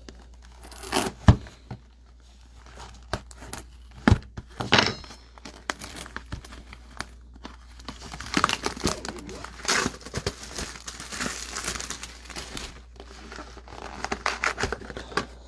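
Plastic wrapping and packaging of 2022 Topps Update trading card boxes being torn open and crinkled, with a few sharp knocks in the first few seconds, then a long stretch of steady crinkling and tearing.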